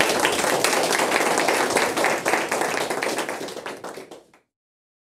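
Audience applauding, many hands clapping at once; it cuts off suddenly about four seconds in.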